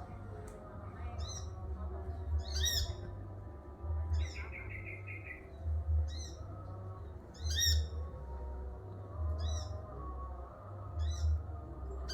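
Sunbird (kolibri manggar) calling in the wild: short, high, falling chirped phrases repeated about every one and a half seconds, with a brief rapid trill about four seconds in. A low rumble runs underneath.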